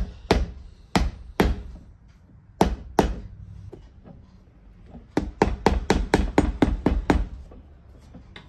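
Cobbler's hammer driving brass tacks into a leather boot heel: a few single strikes, then a quick run of about ten light taps, about five a second, around five seconds in.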